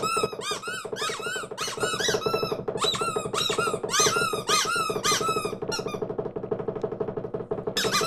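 A flock of small cartoon birds chattering in rapid, squeaky peeps over a steady low hum. The chatter stops about six seconds in and starts again just before the end.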